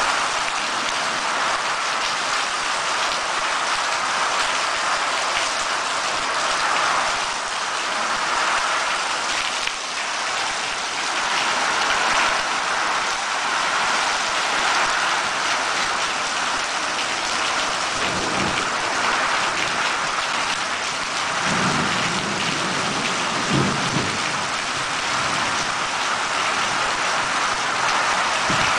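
Heavy rain falling steadily in a thunderstorm, with a few low rumbles of thunder about two-thirds of the way through.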